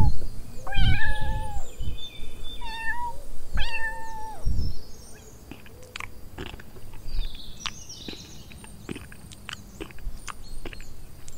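A kitten meowing three times in the first five seconds, each call held on one pitch. After that, quieter sparse clicks and crunches of a horse cropping and chewing grass, with a few faint high chirps.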